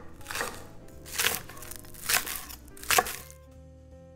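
Chef's knife slicing green onions on a wooden cutting board: four chops a little under a second apart, stopping about three seconds in, over soft background music.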